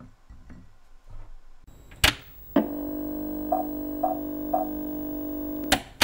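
A short musical sting that comes in with a sharp click. A held, pitched musical tone follows, with three short higher notes about half a second apart, and it cuts off with another click.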